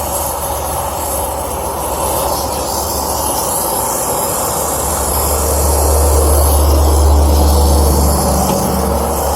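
Brazing torch flame burning steadily, turned down to a lower heat to braze a copper joint on a small line set. The low rumble grows louder about halfway through and eases off near the end.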